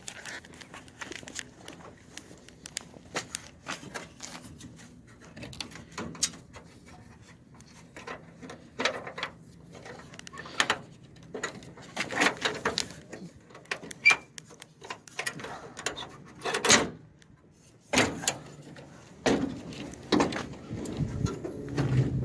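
Intermittent clanks, rattles and scrapes of hands and metal parts being worked on an old car, with a brief squeak and several louder knocks in the second half.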